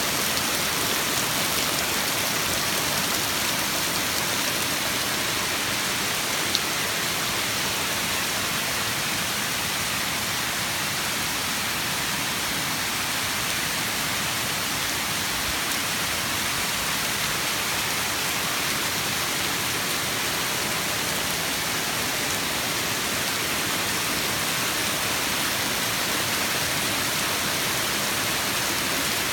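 Heavy rain falling steadily in a downpour, an even hiss of water on leaves, lawn and pavement. One brief click about six seconds in.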